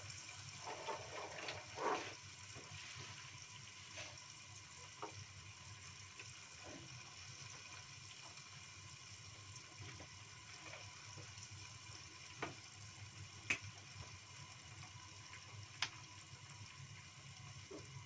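Pigeon frying in oil in a lidded pot on a gas stove: a faint steady sizzle with a scattering of sharp pops and a louder burst about two seconds in.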